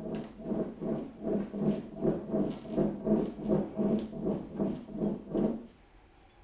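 Volumetric air meter (Roll-a-Meter) rocked quickly back and forth on its side, the fresh concrete, water and alcohol inside sliding and sloshing in a steady rhythm of about three swishes a second. It stops about five and a half seconds in.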